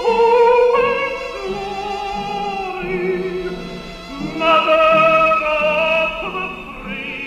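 Operatic singing: long held notes with a wide, wavering vibrato. A higher, louder note comes in about four and a half seconds in.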